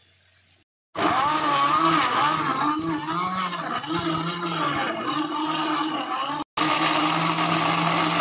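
Electric blender motor running loud, blending strawberries and ice cubes in liquid into juice. It starts about a second in with a pitched hum that wavers as the load shifts, then runs steadier. It breaks off for an instant a little past six seconds in.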